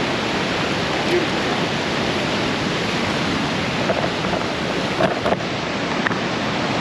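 Steady rushing of flowing river water, with a few small clicks about five seconds in.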